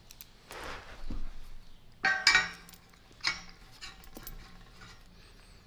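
Steel trap-bar hardware clinking as it is handled: bolts, washers and a handle knocking against metal. There is a sharp ringing clink about two seconds in and a smaller one about a second later.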